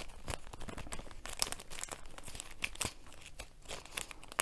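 Resealable plastic bag of resin diamond-painting drills crinkling, with small irregular clicks and rustles from the drills being handled.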